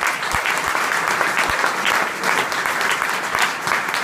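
An audience applauding: many people clapping at once, steady and dense.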